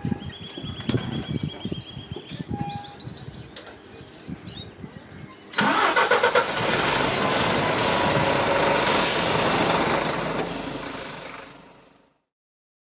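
Birds chirping, then a train runs past loudly, cutting in suddenly about five and a half seconds in and fading away near the end.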